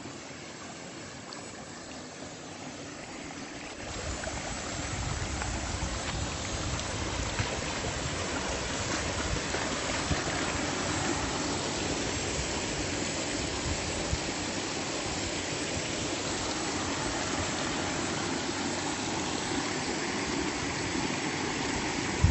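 Steady rush of flowing river water, growing louder about four seconds in.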